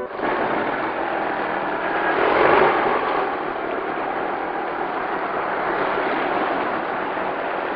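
Street traffic noise: the steady hiss and rumble of passing cars, swelling about two and a half seconds in as a vehicle goes by.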